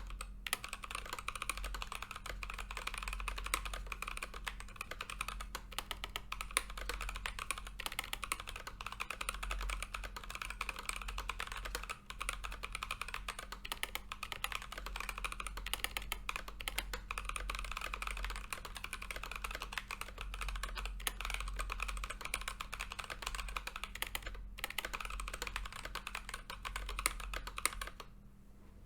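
Keychron K8 mechanical keyboard with Gazzew Boba U4t tactile switches being typed on quickly and continuously, a dense run of keystrokes that stops shortly before the end.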